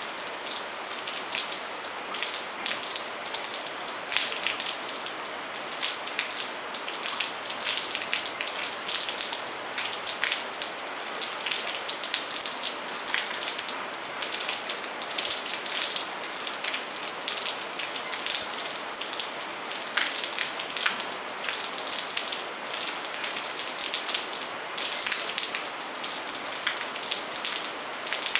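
Steady rain: an even hiss with many separate drop hits close by.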